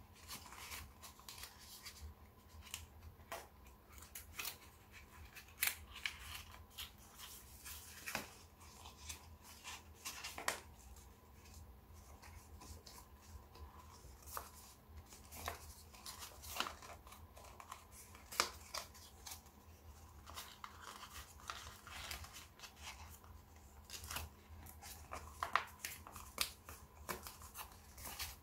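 Origami paper being folded and pressed into shape by hand: irregular crisp crinkles and crease snaps with soft rustling between them.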